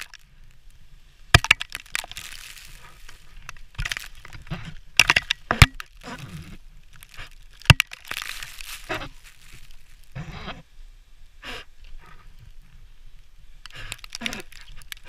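Ice falling from above and striking around the rappeller: a scatter of sharp cracks and knocks, with two longer rushing showers of ice and snow fragments about two and eight seconds in.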